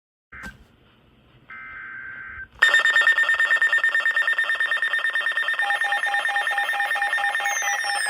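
Short buzzing data bursts of an emergency-alert header, then about two and a half seconds in a weather radio's alarm goes off: a loud, fast-pulsing electronic ring. A second, slower beeping joins a few seconds later, and falling sweeping tones start near the end.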